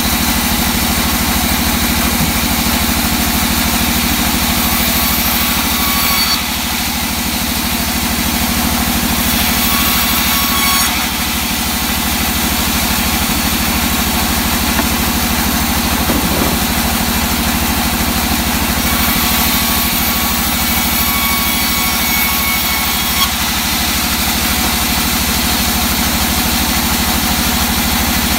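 Large vertical band saw running steadily, with three spells of a brighter, higher sound as the blade cuts through old teak board.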